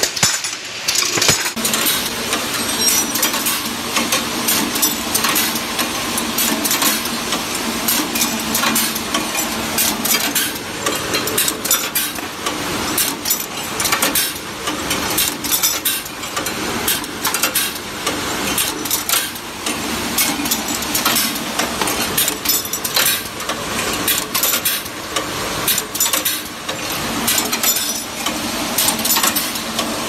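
Multi-spindle door-hinge drilling and chamfering machine running, its spindle motors humming under a continuous rapid clatter and clinking of steel hinge leaves; the steady hum sets in about a second and a half in.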